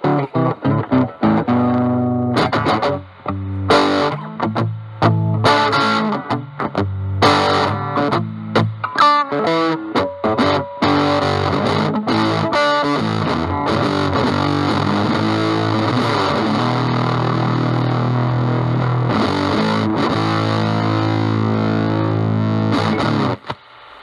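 Fender Stratocaster electric guitar played through a Dunlop JDF2 Fuzz Face pedal with an NTE158 germanium transistor into a Vox Pathfinder 15R on its clean channel, giving a fuzzy, distorted tone. Quick picked notes and phrases give way, about halfway through, to a chord held and sustained for around twelve seconds, which is cut off shortly before the end.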